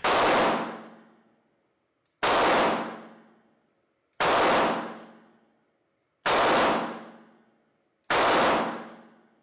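Rock Island Armory M206 .38 Special snub-nose revolver fired five times at a slow, even pace, about two seconds apart. Each shot trails off in the reverberation of an indoor range.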